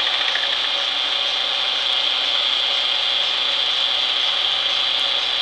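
Renault Clio's engine idling in neutral with the clutch pedal held down: a steady mechanical whirring with a constant high hiss.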